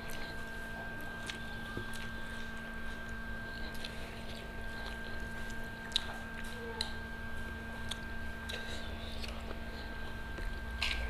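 Close-up eating sounds from people eating grilled chicken and rice with their hands: scattered chewing and small mouth and finger clicks over a steady hum.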